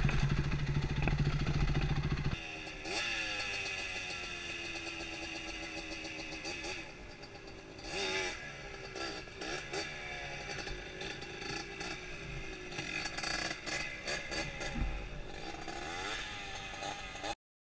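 A dirt bike engine runs loud and close for the first two seconds or so, then drops away abruptly. After that a quad's engine, much fainter, revs up and down over and over as it rides up a hill, until the sound cuts off just before the end.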